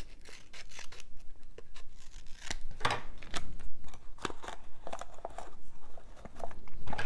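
Scissors snipping paper, followed by paper being handled and crinkled with the fingers: a scattering of short, sharp clicks and crackles.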